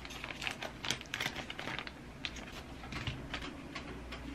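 Scissors snipping through a thin clear plastic sticker bag while the bag crinkles in the hands: an irregular run of short clicks and rustles.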